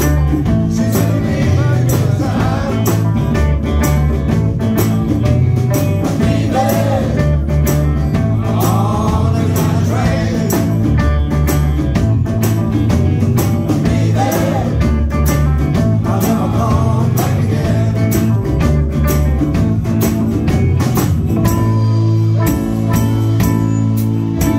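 Live rock band playing a blues-rock number: electric guitar over drums, with a wavering lead melody line on top. The drums drop back about 22 seconds in, leaving held chords.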